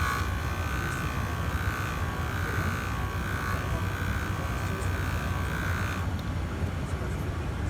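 Motorized JOOLTOOL polishing machine running with a steady whine as a felt wheel with compound works a metal watch band; the whine cuts off about six seconds in, leaving a steady low rumble of background noise.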